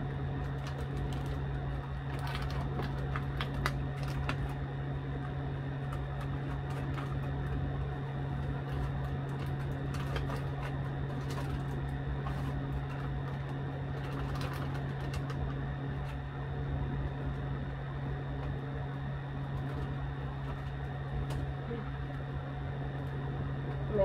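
A steady mechanical hum holding several fixed pitches, with scattered light crinkling and rustling as paper mite sachets are handled.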